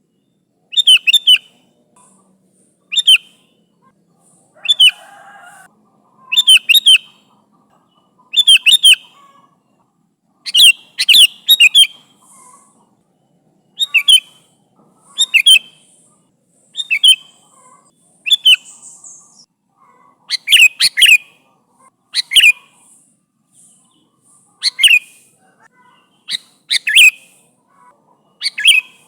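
Sooty-headed bulbul (kutilang) calling loudly: short chirpy phrases of a few quick notes, repeated every one to two seconds, a call to others of its kind.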